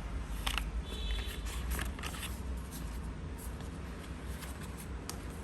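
Faint paper-handling sounds: a few soft rustles and small clicks in the first two seconds, over a steady low hum.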